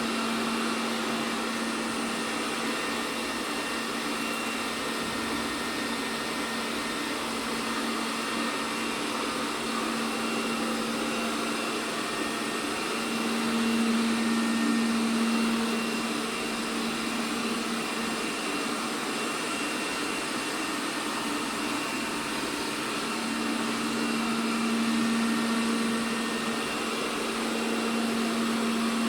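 ELARI SmartBot Lite SBT-002A robot vacuum running: a steady whir with a low hum, swelling louder a few times.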